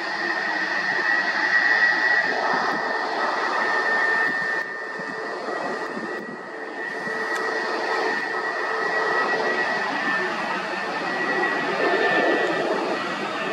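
Jet engines of a Boeing 737 MAX airliner on final approach with gear down: a steady rushing jet noise with a thin, high steady whine over it, dipping briefly about five seconds in.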